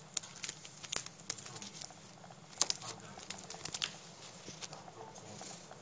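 Rustling and irregular clicks of a long-haired cat's fur and paw brushing and tapping against the camera's microphone, with one sharper knock about two and a half seconds in.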